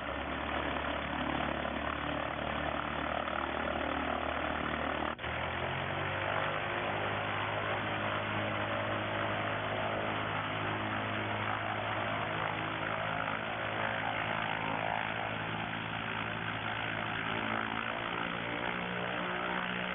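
Single piston engine and propeller of an Aeronca Sedan light aircraft running steadily just after start-up; about five seconds in the engine runs up to a higher speed and holds there.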